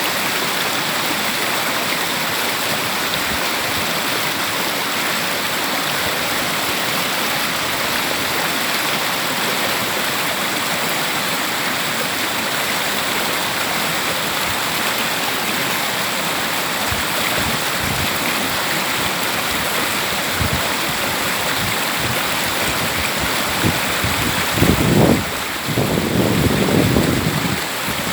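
River water flowing steadily. From past the middle there are scattered low thumps, and in the last few seconds a louder low rumble over the water.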